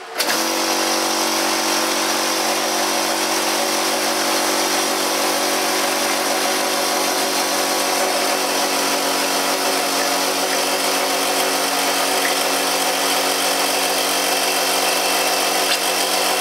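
Kinchrome portable air compressor starting up a fraction of a second in and running: electric motor and piston pump giving a loud, steady mechanical drone. As it runs the pump throws out its oil, which turns out to be full of water.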